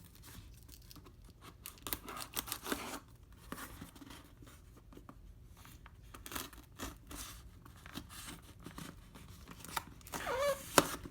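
Taped mailing packaging being torn and pulled open, with irregular rustling and crinkling and a few short clicks, the loudest burst and a sharp click near the end.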